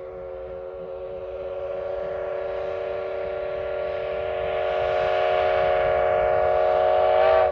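C58 steam locomotive's whistle sounding one long blast of several steady tones together, growing louder and cutting off abruptly near the end.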